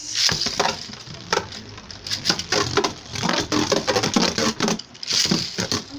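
Beyblade spinning tops launched from a ripcord launcher into a plastic stadium, rattling and clattering: a dense run of quick clicks and ticks.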